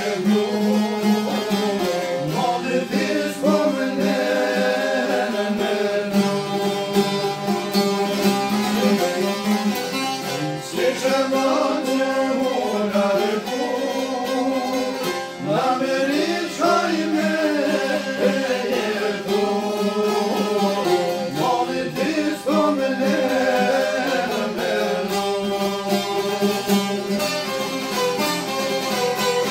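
Albanian folk music played live: a violin and several plucked long-necked lutes with a round-backed lute, a man's voice singing over them in long, gliding phrases.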